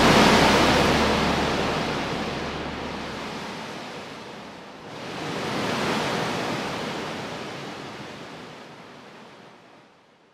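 Rushing noise like waves breaking on a shore. It swells and ebbs twice, about five seconds apart.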